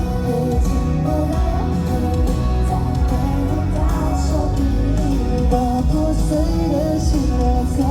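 Pop song performed live: a singing voice carrying the melody over backing music with guitar.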